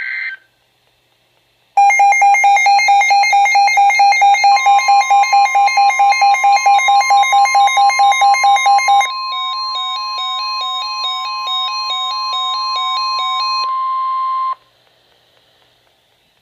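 Weather-radio emergency alert tones: a loud, fast electronic beeping, about four beeps a second, joined about a few seconds in by a steady long alarm tone. The beeping turns into a warbling two-note pattern about halfway through, then all the tones cut off together a couple of seconds before the end.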